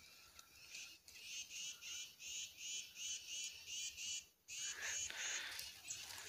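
Faint, evenly repeated high-pitched animal calls, about three a second. A brief rustle comes a little past the middle.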